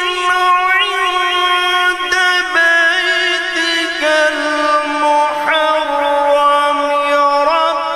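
A man's solo voice chanting a devotional recitation into a microphone, unaccompanied. He draws out long held notes with wavering ornaments and moves to a new pitch every second or two.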